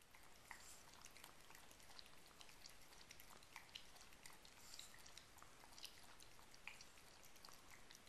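Yorkshire terrier puppy lapping water, a faint run of quick wet clicks and drips several times a second.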